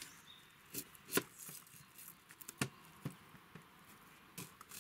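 Folding knife cutting a small new onion on a wooden cutting board: a few separate, irregularly spaced sharp taps of the blade against the board, the loudest about a second in.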